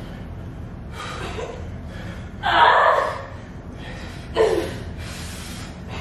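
A person breathing hard and gasping with effort from the strain of wheelbarrow push-ups: a few short, heavy breaths, the loudest about two and a half seconds in.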